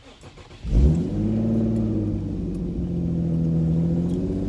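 Acura RSX Type-S 2.0-litre four-cylinder engine starting up about a second in, flaring briefly, then settling into a steady idle. The exhaust has a leak the owner is sure of.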